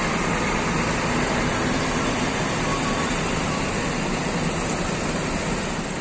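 A large coach bus's diesel engine running steadily, a constant low hum under a broad even rumble of engine and yard noise.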